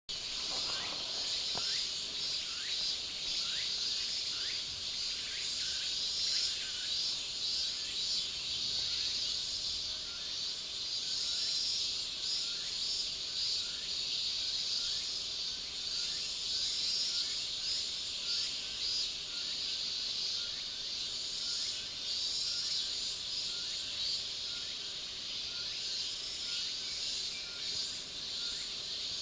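Chorus of insects, a steady high-pitched shrilling, with short chirps repeating through it about every half second to a second.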